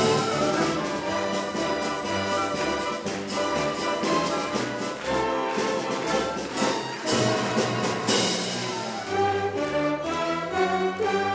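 Chamber orchestra playing, brass and strings together, with a few sharp accented hits, the strongest about eight seconds in.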